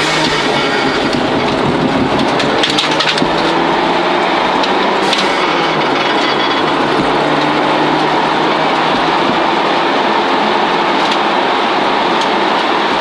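1989 Toyota Celica GT4's turbocharged four-cylinder engine pulling hard at rally pace, heard from inside the cabin over a loud, steady rumble of road and tyre noise. The engine note rises and falls as the car accelerates and shifts. A few sharp knocks come around three seconds and five seconds in.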